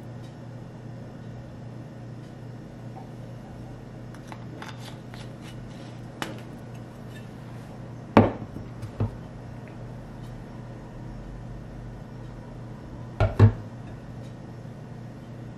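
Bottles being set down on a kitchen countertop: a few faint clicks, a sharp knock about eight seconds in with a softer one just after, and a quick double knock near the end, over a steady low hum.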